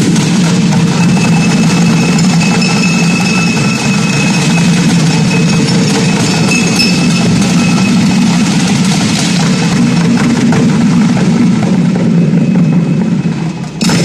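Ensemble of Chinese drums played in a fast, continuous roll, the strikes running together into a dense, loud rumble. It closes on a single sharp accented hit near the end.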